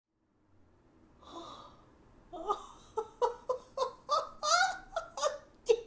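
A woman's voice: a quick audible breath, then a run of short laughing, exclaiming sounds, about four a second, with one drawn-out rising and falling cry in the middle.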